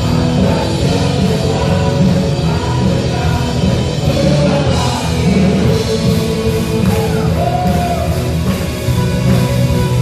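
Live worship band playing an upbeat Indonesian praise song, with guitars and keyboards under singers, recorded in the hall.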